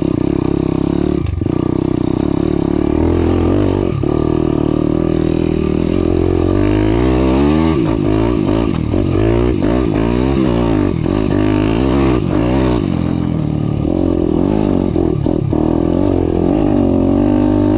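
Daytona 190 four-valve single-cylinder pit bike engine being ridden, its pitch rising and falling as the rider works the throttle and gears. It revs up and down quickly several times through the middle stretch.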